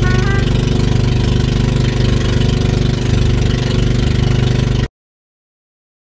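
Engine of a small outrigger boat running steadily with a fast, even beat, loud and close. It cuts off suddenly about five seconds in.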